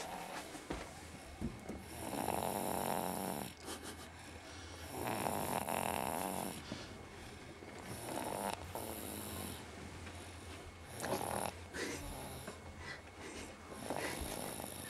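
A baby snoring in slow, regular breaths, one snore about every three seconds.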